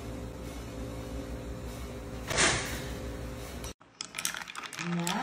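Steady low hum of a kitchen appliance, with a short breathy noise about two and a half seconds in from the woman drinking. After a sudden cut, a metal straw clinks against a glass jar as iced tea is stirred, and a voice starts near the end.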